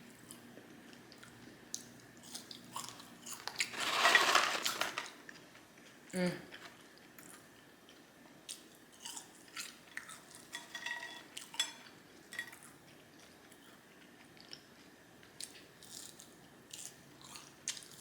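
Close-miked chewing and mouth sounds of a person eating fast food, made of scattered short clicks and smacks. A louder crunching, rustling stretch comes about four seconds in.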